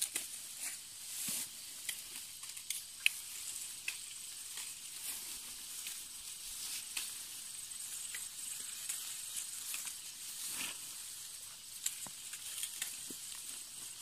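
Dry rice plants rustling and crackling in irregular crisp ticks as upland rice is harvested by hand, over a thin, high, steady tone.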